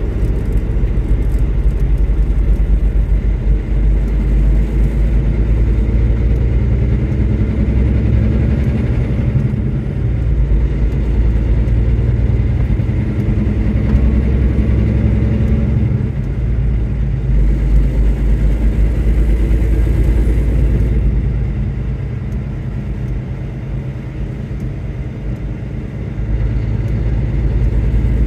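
A vehicle driving on a wet road, heard from inside the cabin: a steady low rumble of engine and tyres with a wash of road noise. It eases off for a few seconds near the end, then picks up again.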